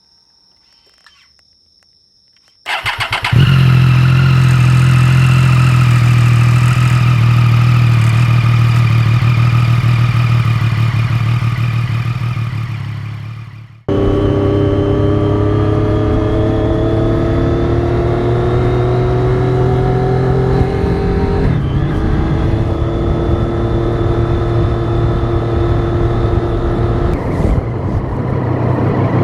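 A 2013 Triumph Daytona 675's three-cylinder engine starts with a brief stutter about three seconds in and settles into a steady idle. About eleven seconds later the sound fades and cuts to the bike under way, its engine pitch rising slowly, dropping once at a gear change and then rising again.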